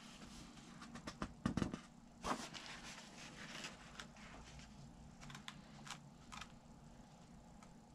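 Paper instruction sheets rustling and crinkling as they are handled and a booklet's pages are turned, with a soft thump about a second and a half in.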